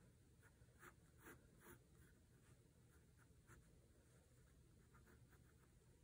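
Faint scratching of a pencil on paper in short strokes, a few clearer ones in the first two seconds.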